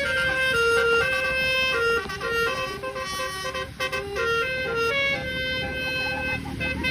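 Basuri 'telolet' musical bus horn playing a tune: a run of held horn notes stepping up and down about every half second, over a low engine rumble.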